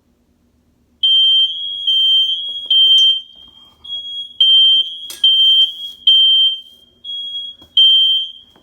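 Household smoke detector going off, set off with a lit match: a loud, piercing single-pitch electronic shriek that starts about a second in and keeps swelling and dipping every half-second or so before it stops.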